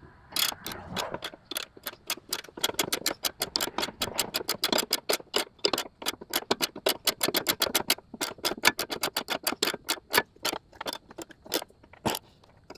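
Hand ratchet wrench clicking rapidly, several clicks a second in short runs with brief pauses, as the nut on a sway bar end link is run down and tightened. The clicking stops near the end, once the nut is tight.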